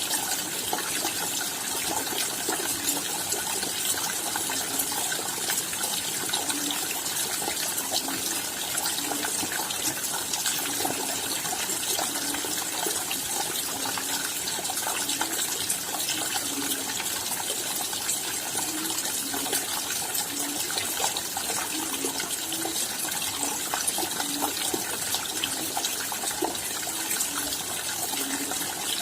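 Steady rain: a dense, even patter of raindrops, with small low knocks at irregular intervals.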